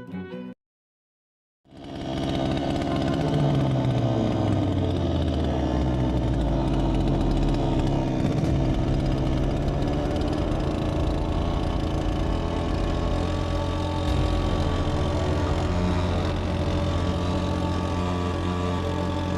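Small 3 hp two-stroke outboard motor running. It comes in about two seconds in, its pitch drops over the next couple of seconds, and then it holds a steady note.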